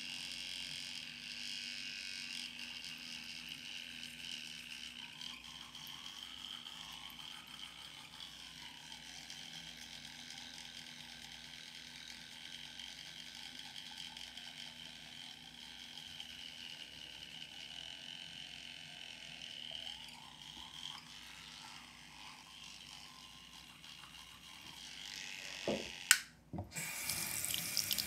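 Teeth being brushed, a steady brushing sound. Near the end there is a sharp click, and a tap starts running into the sink.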